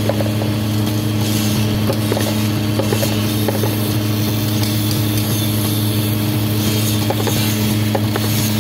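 Slate-chip grooving machine running with a loud, steady electric-motor hum and a constant grinding hiss, with scattered small clicks throughout.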